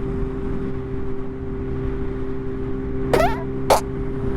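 Yamaha R1 inline-four engine running at steady revs under wind and road rumble, heard from the rider's microphone. Two brief sharp sounds, a short squeak and a click, come a little after three seconds in.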